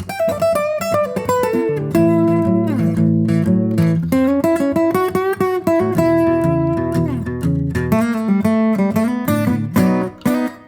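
Background music on plucked guitar, notes picked and strummed with a few sliding notes.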